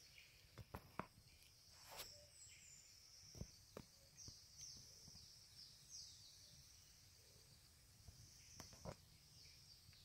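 Faint outdoor ambience: a steady high insect drone with a few short high chirps in its middle stretch, and scattered soft clicks and taps.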